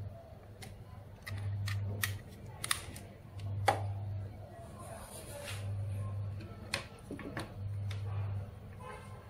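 Small plastic clicks and taps from a charging cable and plugs being handled and pushed into the Type-C port of a handheld remote control. Under them is a low hum that swells for under a second about every two seconds.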